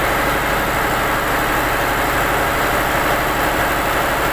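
A fishing boat's engine running steadily at idle, a constant drone.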